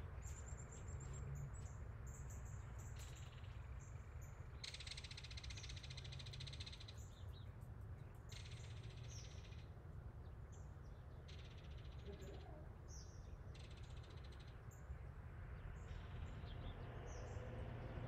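Faint outdoor ambience: small birds chirping, with four or five buzzy trills of one to two seconds each, over a steady low rumble.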